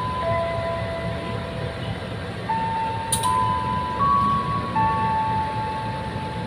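A slow, simple electronic tune of single held notes, stepping from pitch to pitch, over the low rumble of a GE CC203 diesel-electric locomotive rolling slowly past. A single sharp click a few seconds in.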